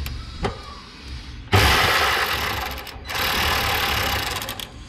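Cordless power driver with a socket extension running in two bursts of about a second and a half each, with a short pause between, loosening the bolt on a heat pump's capacitor bracket.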